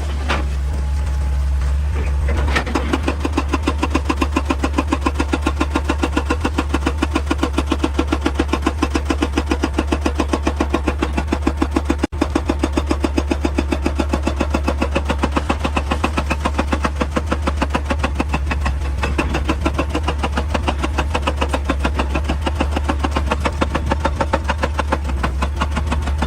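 Excavator's diesel engine running under load while a hydraulic rock breaker hammers rock at a rapid, even rate of about five blows a second, the hammering starting a couple of seconds in.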